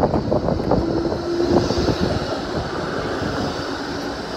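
E-class tram rolling along the street rails at close range, its wheels and running gear giving a steady rumble with a faint steady hum.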